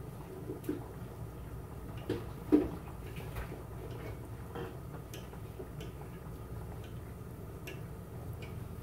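A metal fork clicking and scraping against a pot as pasta in water is stirred and checked for doneness: irregular light clicks, the loudest about two and a half seconds in, over a steady low hum.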